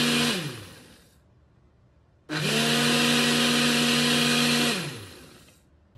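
Ninja personal blender running its Auto-iQ smoothie program, pulsing a cup of fruit: the motor cuts off just after the start and winds down, pauses about a second, then runs again for about two and a half seconds before winding down once more.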